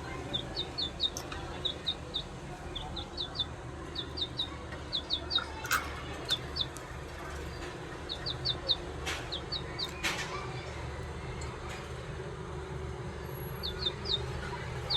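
Caged budgerigars chirping: short, high chirps in quick runs of two to four, repeated throughout, with a few sharp clicks near the middle.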